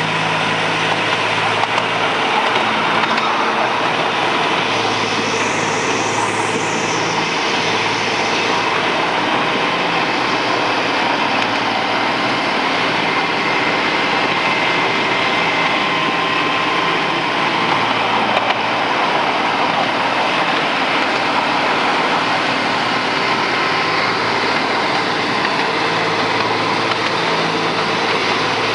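Miniature 7¼ inch gauge GP40-outline diesel locomotive running steadily along the line, a steady low engine hum over a constant rushing noise of the moving train.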